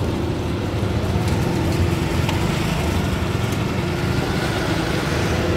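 Steady low rumble of a running motor vehicle, with a faint steady hum over it.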